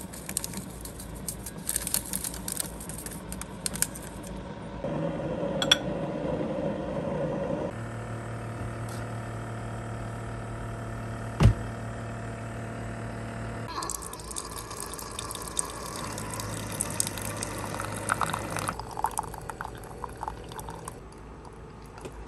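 Keurig coffee maker brewing a 12-ounce cup: after a sweetener packet rustles at the start, the machine hums steadily with one sharp click partway through, then hot water hisses and coffee pours and trickles into the mug, quietening near the end.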